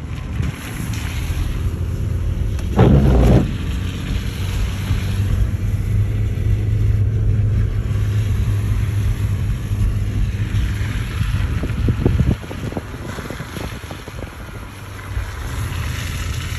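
Wind buffeting the microphone: a low, rumbling roar with a loud gust about three seconds in. The roar drops off suddenly about twelve seconds in, then builds again.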